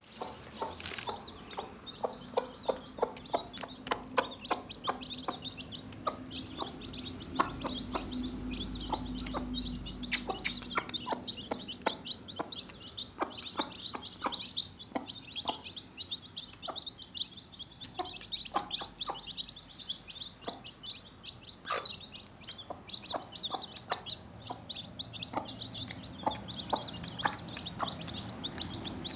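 A group of young chicks peeping constantly in short, high chirps, several a second, with frequent light clicks or taps among them.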